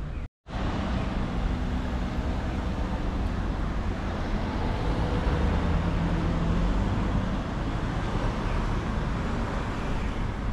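City street traffic: cars driving past with steady road noise. The audio cuts out completely for a moment about a third of a second in.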